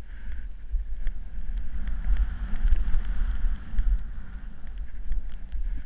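Wind buffeting the microphone of a helmet-mounted camera during a descent through powder snow, with the hiss of snow sliding under the rider that swells about halfway through.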